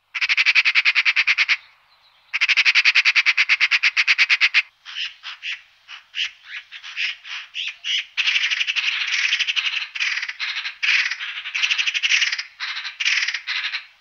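Eurasian magpie chattering: two long, fast, dry rattles, then a run of shorter chattering calls.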